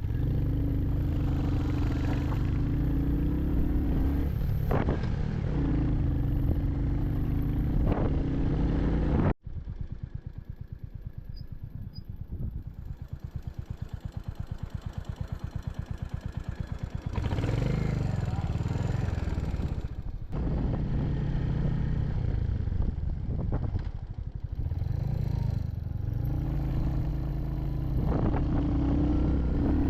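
Royal Enfield Hunter 350's single-cylinder engine running under way, its note rising and falling with the throttle. About nine seconds in the sound cuts abruptly to a quieter, slower beat at low revs, then picks up again a little past halfway.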